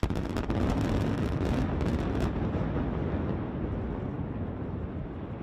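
Controlled demolition blast of the Morandi bridge's pylons, about 550 kg of explosive charges: a sudden loud onset with a rapid string of sharp cracks over the first two seconds, merging into a long deep rumble that slowly fades.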